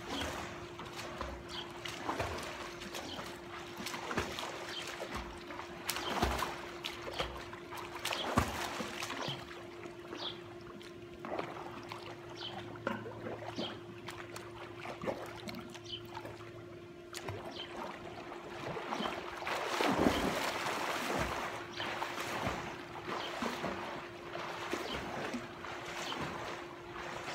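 Water splashing and trickling from a person swimming in a pool, irregular strokes and kicks breaking the surface, with a louder stretch of splashing about two-thirds of the way through. A steady low hum runs underneath.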